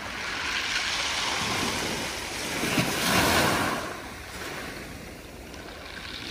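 Small waves washing in and draining back through a thick mat of sea spaghetti seaweed over a pebble beach, a rushing, seething wash. One surge builds to its loudest about three seconds in, falls away, and the next starts to come in near the end.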